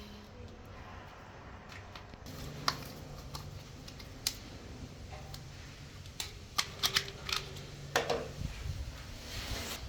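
Handling noises: irregular clicks and knocks, coming more often in the second half, over a low steady hum that starts about two seconds in.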